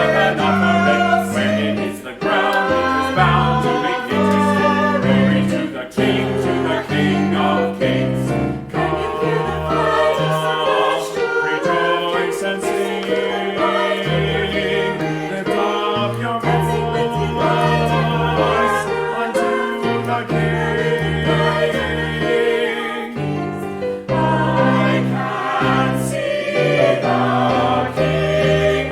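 Church choir singing an anthem in parts, with sustained chords that move from note to note.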